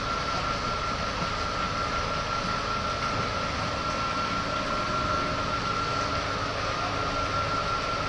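Steady hum and hiss of running machinery, with a constant high-pitched whine running through it.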